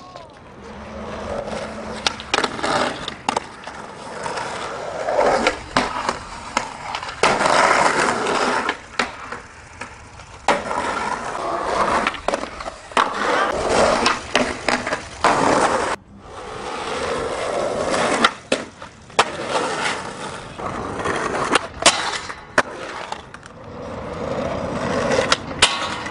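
Skateboard wheels rolling on concrete, swelling and fading, broken by many sharp clacks of the board popping and landing.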